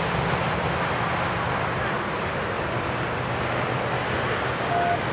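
Double-stack intermodal freight train rolling over a steel girder bridge: a steady rumble of wheels on rail, with a low hum underneath.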